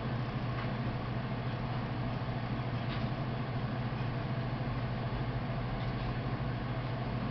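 Steady low hum with an even hiss over it, like a machine or fan running in a room, with no other sound.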